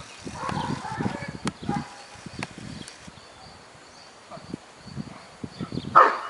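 German shepherd moving about, with scuffling and a few sharp clicks, then one loud bark near the end.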